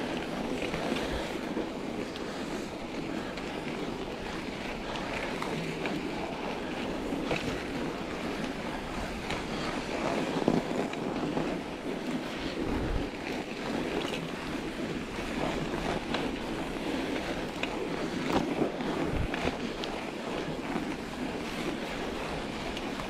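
A mountain bike on studded Schwalbe Ice Spiker tyres rolling over packed snow: a steady rushing tyre noise mixed with wind on the microphone, with occasional knocks and rattles from the bike over bumps.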